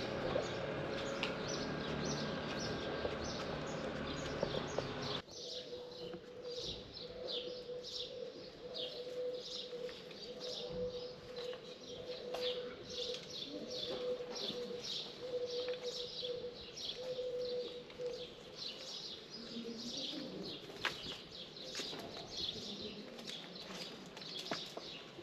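Small birds chirping, short high calls repeated several times a second. Before them a steady background noise cuts off abruptly about five seconds in, and a faint steady hum runs under the chirps for a while.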